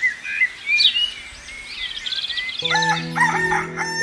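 Birds chirping, with a rooster crowing about two seconds in. Background music with sustained notes comes in about two-thirds of the way through.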